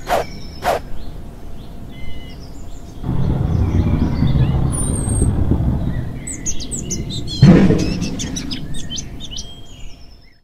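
Intro sound effects: birdsong ambience with chirps, two sharp knocks just after the start, a low rumble coming in about three seconds in, and a sudden loud thud about seven and a half seconds in that fades away.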